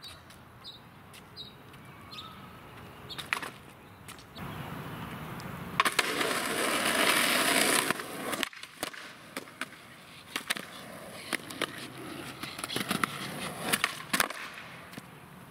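Skateboard wheels rolling on pavement, loudest for about two seconds near the middle. Then come several sharp clacks as the board strikes the ground.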